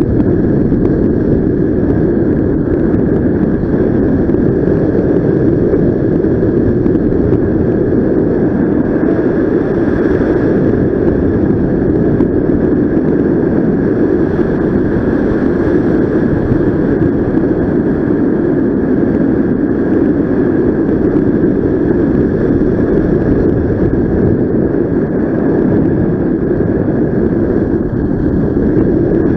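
Airflow rushing over the camera microphone of a paraglider in flight: a loud, steady wind roar with a thin, steady tone riding above it.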